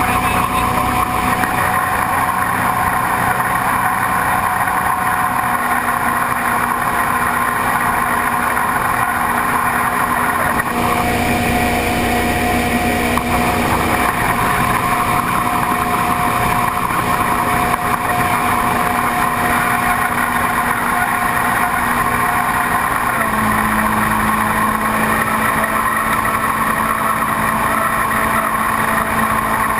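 V8 engine of a tunnel-hull jet boat running loud and steady at speed. Its note shifts slightly about 11 seconds in and again about 23 seconds in.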